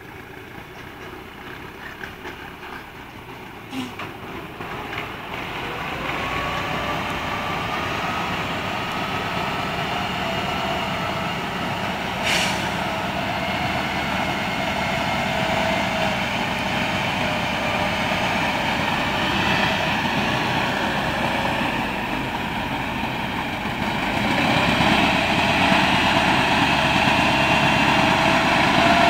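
Tatra 148 fire truck's air-cooled V8 diesel engine running steadily as the truck works down a dirt slope, growing louder as it comes close. It steps up again in loudness near the end, with its note rising.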